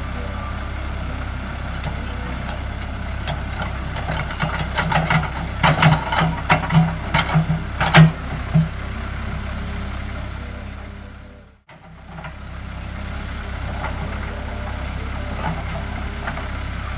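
Diesel engine of a JCB 3CX backhoe loader running steadily while it grades a dirt road. A run of irregular knocks and clanks comes about a third of the way in. The sound briefly drops out and fades back in past the middle.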